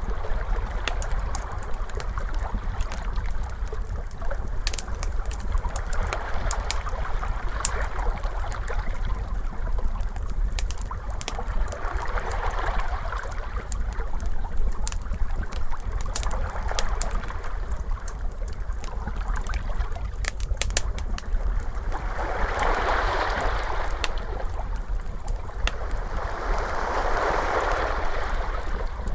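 Crackling wood fire with many sharp pops, over ocean waves washing in every five seconds or so, with the last two swells the strongest. A steady low rumble runs underneath.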